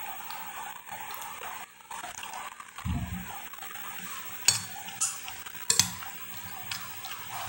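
Metal spoon scraping and clinking against a glass plate while scooping food, with several sharp clinks between about four and six seconds in. A dull low thump about three seconds in.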